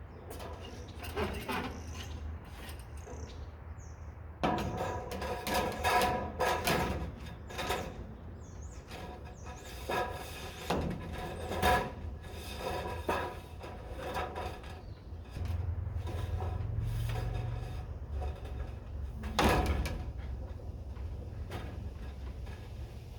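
Irregular knocks, scrapes and rattles of long metal corner trim being handled and fitted against the building, over a steady low hum, with the busiest clatter in the middle and one sharp knock near the end.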